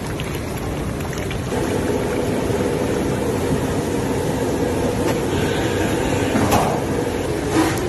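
Steady noisy hiss of a large aluminium pot of chicken curry boiling hard over a gas flame, with a couple of faint knocks near the end.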